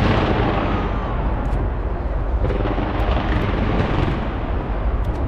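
A fireworks barrage: a sharp bang at the start, then a continuous low rumble of booming and crackling with a few scattered pops.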